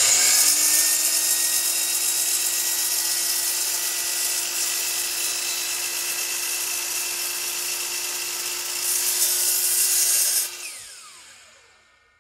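DeWalt sliding compound miter saw (chop saw) comes up to speed and runs with a steady whine while the blade cuts into the end of a base trim board, trimming away the straight part of a coped inside-corner profile. Near the end it gets louder for a moment, then is switched off and winds down with a falling whine.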